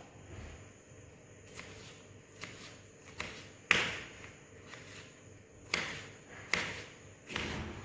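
Knife strikes on a cutting board as a yellow bell pepper is cut into pieces: about seven separate chops spaced irregularly, growing stronger, with the four sharpest in the second half.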